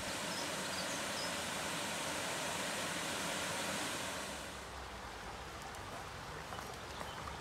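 Small waterfall on a stream, water rushing and splashing in a steady hiss. About halfway through it drops quieter and duller, to a gentler flow of shallow water over rocks.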